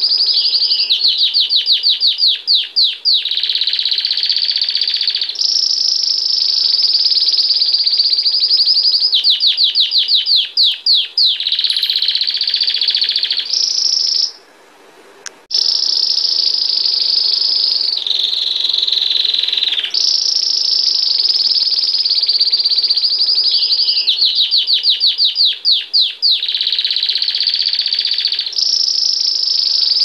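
Domestic canary singing continuously: long rolling trills alternating with runs of fast, sharply repeated notes, high in pitch, with one short pause about halfway through.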